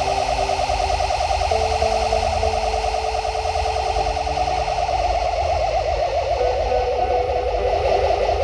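Experimental noise music performed live: a dense, steady electronic drone with a rapid pulsing texture, over which held tones shift pitch in steps every couple of seconds, above a low rumble.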